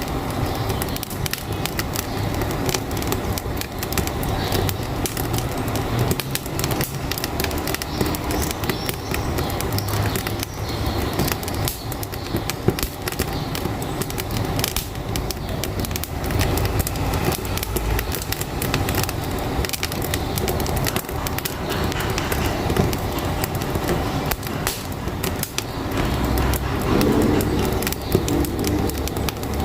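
Wood fire crackling in a wood-burning cookstove, with many pops and snaps, over the steady low rumble of a truck engine.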